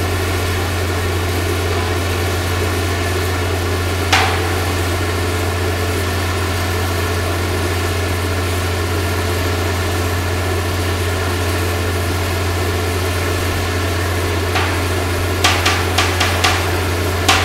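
A crane's diesel engine running steadily with a deep drone. Sharp knocks cut through it: one about four seconds in, then a quick run of about six near the end.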